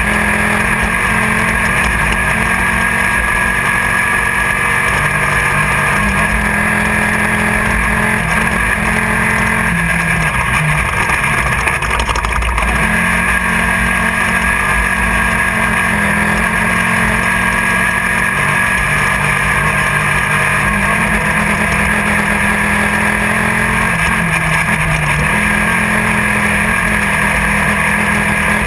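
Class 1600 desert race car's air-cooled VW flat-four engine running hard and steadily, heard from inside the car over constant wind and rattle noise, with brief dips in engine pitch about ten to thirteen seconds in and again near the end.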